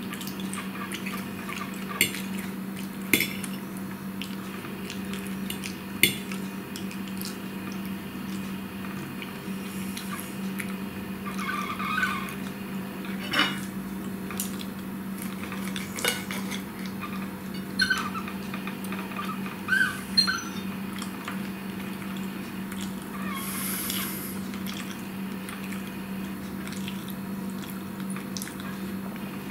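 Metal fork and knife clinking and scraping on a dinner plate, a handful of sharp clicks a few seconds apart. A steady low hum runs underneath.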